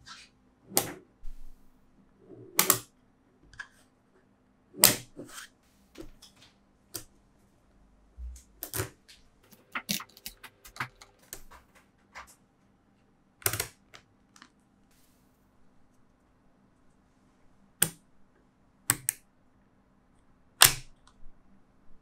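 Small magnet balls (buckyballs) snapping together with sharp single clicks at uneven intervals of one to two seconds, some sharper and louder than others, over a faint steady low hum.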